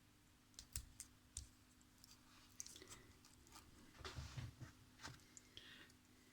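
Faint, scattered clicks and handling sounds of Kapton tape being worked and pressed down onto a small circuit board, over a faint steady hum.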